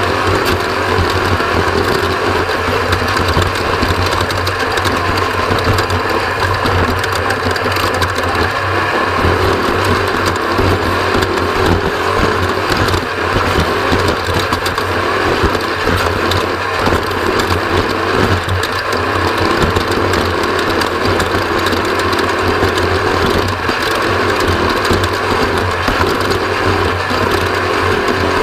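Off-road race vehicle running steadily, its engine drone mixed with a constant dense rattle.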